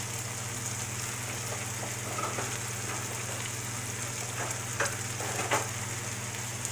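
Chicken pieces sizzling steadily in a frying pan as they brown, uncovered after cooking through. Metal tongs turning the pieces give a few sharp clicks against the pan a little before the end.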